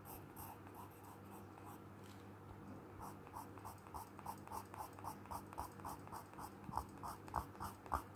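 Soft graphite pencil scratching across heavy, rough-textured drawing paper in quick short strokes, about four a second, as hair is hatched in; the strokes pause for about a second roughly two seconds in, then resume.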